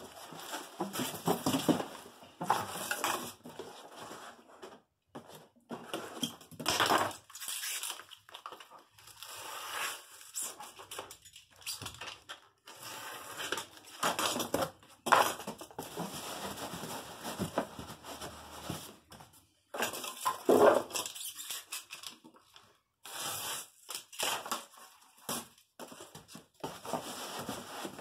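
Cardboard box flaps and a sheet of packing board being handled, folded and slid. The sound is irregular scraping, rustling and light knocks in bursts with short pauses.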